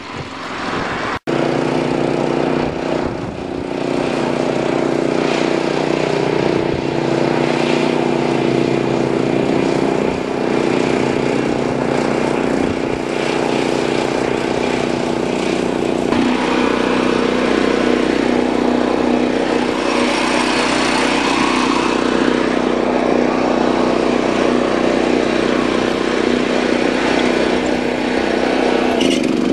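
Replacement engine in a John Deere 210 lawn tractor running at a steady speed after an engine swap. There is a very brief break about a second in, and its note shifts a little about halfway through.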